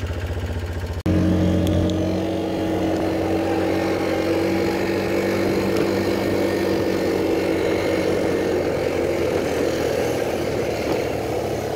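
Quad bike (ATV) engine running steadily under way, over a rushing noise of wind and road. The sound breaks off briefly about a second in, then resumes at an even pitch.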